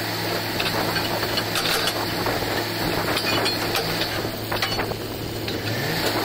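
Truck-mounted borewell drilling rig running with a steady engine and compressor drone, with scattered clinks and scrapes of shovel work on the cuttings.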